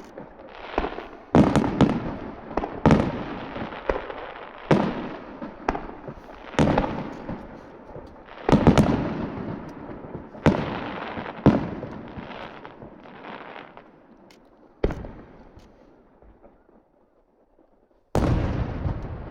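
Aerial firework shells bursting one after another at irregular intervals, each bang trailing off in a rumbling echo. The bursts thin out and grow fainter past the middle, then a loud burst comes near the end.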